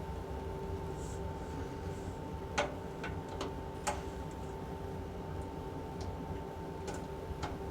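Scattered sharp clicks and taps of hand work on the cable connections, the loudest about two and a half and four seconds in, over a steady low hum.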